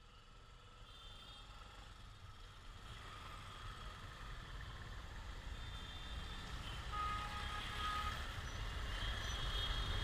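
Road traffic fading in and growing steadily louder: a low rumble of vehicles with a few short high beeps toward the end.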